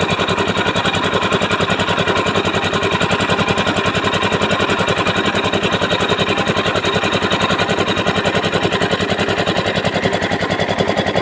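Engine of a homemade borewell drilling rig running steadily, with a rapid, even pulse.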